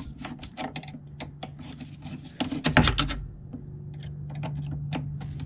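Gloved hands handling clear plastic brake-bleeding tubes and fittings at a master cylinder: a string of small clicks, taps and rustles, with one louder knock about halfway through. A steady low hum runs underneath.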